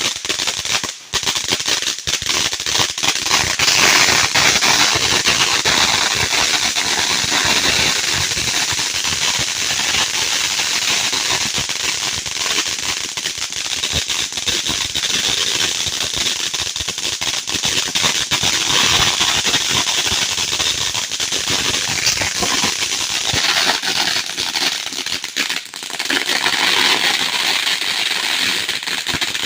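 Consumer fireworks going off in a loud, dense crackle of countless small pops, with short lulls about a second in and again near the end.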